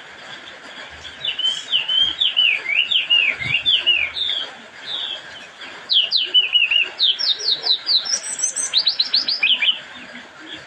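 Red-whiskered bulbul singing: phrases of quick, sweeping whistled notes, with a brief higher twitter near the end, stopping just before the close.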